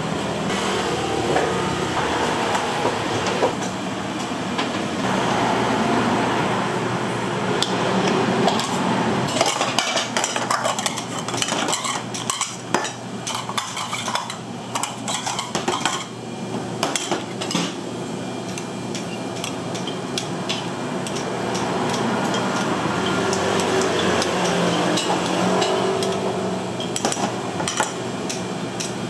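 Porcelain bowls and metal utensils clinking and clattering as bowls are set out and filled on a stainless-steel counter, over steady kitchen background noise. The clinks come thickest in the middle of the stretch and again near the end.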